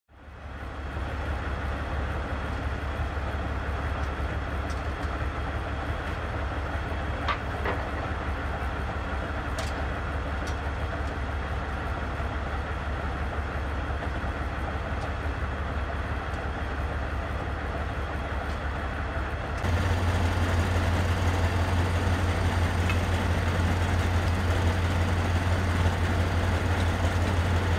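Heavy diesel engine of a T-72-chassis tracked vehicle idling, a steady low drone that gets louder about two-thirds of the way through, with a couple of faint clicks.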